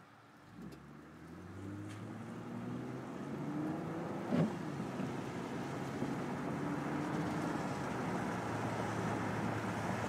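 Car engine pulling away and speeding up, its pitch and loudness rising over the first few seconds, then running steadily under a hiss of tyre and road noise. There is a brief click about four and a half seconds in.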